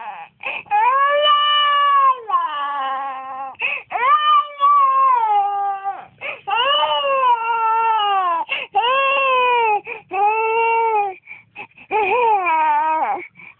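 A young child crying hard: a run of about seven loud wails, each one to two seconds long and falling in pitch at its end, with short breaks for breath between them.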